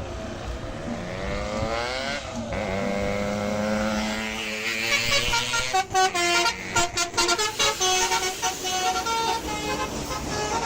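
Indonesian tour bus 'telolet basuri' musical horn. About six seconds in it starts playing a tune of quick, stepped notes, after a pitch that glides upward and then breaks off.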